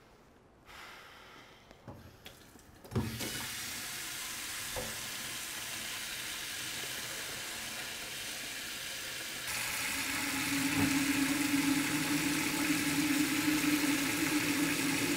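A few soft knocks, then a water tap is turned on about three seconds in and runs in a steady rush. About ten seconds in, the flow gets louder and a steady low tone joins it.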